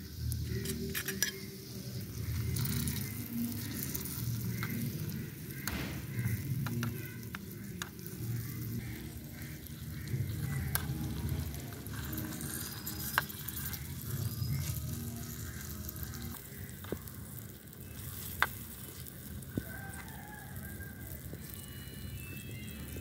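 A small metal spoon stirring chicken pieces in a miniature aluminium kadai, with a light frying sizzle and now and then a sharp clink of the spoon against the pan.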